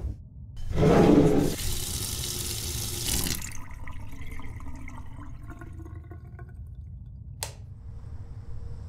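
Water gushing into a bathtub, starting suddenly about half a second in, loudest at first, then running on more softly and steadily. A single sharp click comes about seven seconds in.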